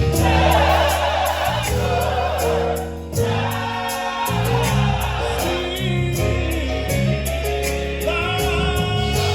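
Live gospel music: a choir singing over a band with strong sustained bass and drums.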